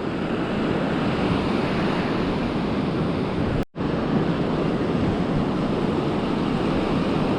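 Ocean surf washing on a beach, mixed with wind buffeting the microphone: a steady rush of noise, cut off for a split second about halfway through.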